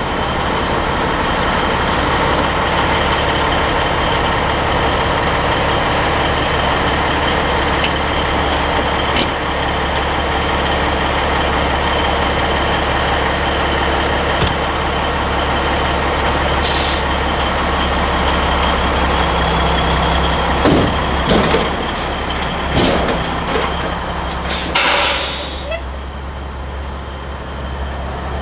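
Diesel engine of a Peterbilt 362 cabover tractor idling steadily while its lowboy trailer's gooseneck is detached. A short hiss of released air comes about halfway through, then a few knocks, and a louder hiss of about a second near the end.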